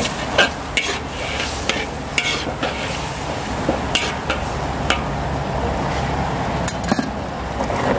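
A metal ladle stirring pineapple chunks in sweet-and-sour sauce in a large steel wok, scraping and clicking against the pan now and then over a steady sizzle from the sauce.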